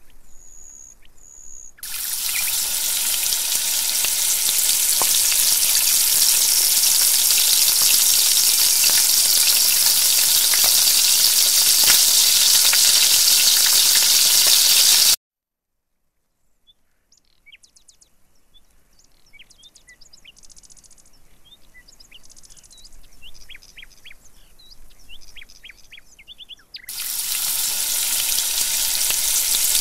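Poha fingers deep-frying in hot oil in a miniature pan: a loud, steady sizzle starts about two seconds in and cuts off abruptly about halfway. A stretch of faint scattered crackles follows, and the loud sizzle returns near the end.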